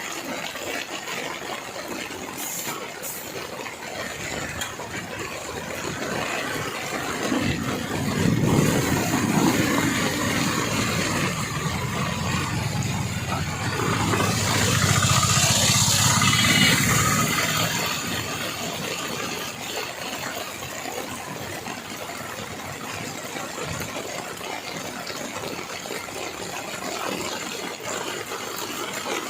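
Road traffic on a wet highway: a steady hiss of tyres and rain, with a vehicle's engine growing louder from about a quarter of the way in, loudest around the middle, then fading.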